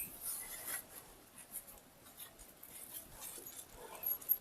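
Faint scratching and rustling of hands handling things, with a brief louder scrape near the end.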